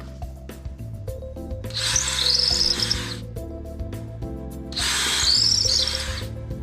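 Power drill boring a hole for the gate latch bolts with a wider bit, in two runs of about a second and a half each, the second starting about five seconds in. Background music plays throughout.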